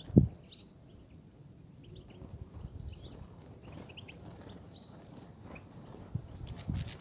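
European goldfinches calling: scattered short, high chirps and twitters. A loud low thump comes just after the start, and softer knocks come near the end.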